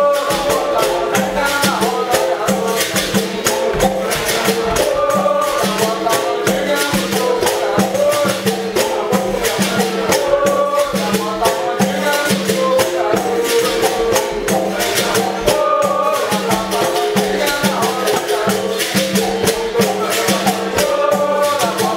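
Capoeira roda music: berimbaus struck in a steady repeating rhythm, with caxixi shakers rattling and a pandeiro, and voices singing over it.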